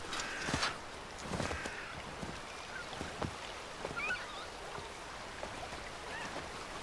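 Soft rustling and handling noises over a steady background hiss, with a few faint, short high squeaks about four seconds in.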